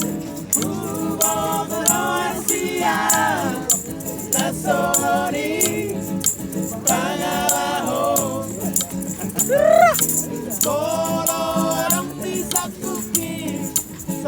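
Song with a voice singing melodic phrases, held notes and a pitch glide about ten seconds in, over a backing track with a steady shaker-like percussion beat.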